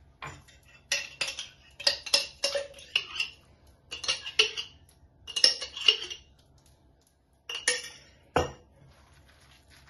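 A spoon scraping and clinking against a glass mayonnaise jar and a ceramic bowl as mayonnaise is spooned out onto a salad, a run of short clinks and scrapes, then a single sharper knock near the end.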